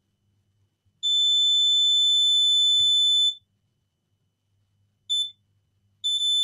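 Multimeter continuity beeper sounding as the probes touch points on a circuit board: one steady high-pitched tone, heard as a long beep of about two seconds, a short blip about five seconds in, and another beep starting near the end. Each beep signals that the meter reads a connection between the two probed points.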